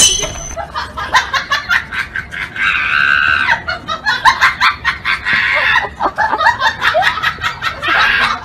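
People laughing hard in rapid bursts, with high-pitched shrieks.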